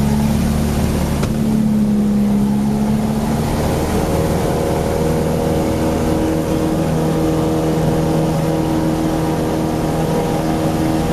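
Cessna 172 Skyhawk's piston engine and propeller running steadily, heard from inside the cabin as a loud, even drone.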